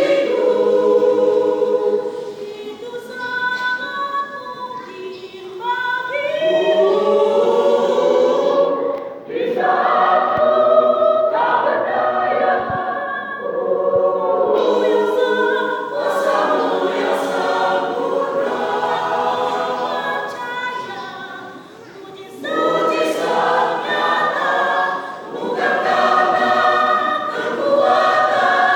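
A church choir singing a song in several voices, phrase by phrase, with short breaks between phrases.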